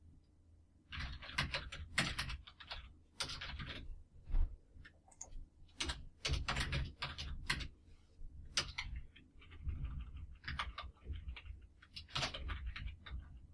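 Typing on a computer keyboard: irregular runs of quick key clicks with short pauses.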